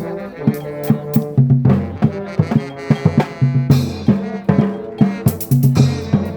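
Brass band music: trombones holding low notes over a drum beat.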